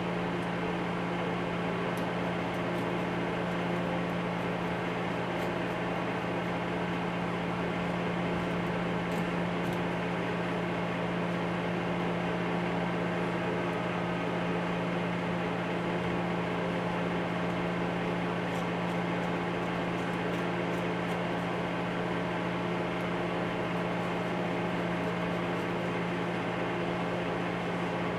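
Steady mechanical hum at an even level, with a low droning tone and a noisy haze above it, like a running fan or motor. A few faint light clicks, as of a small metal tool picking at a carburetor body, come through it.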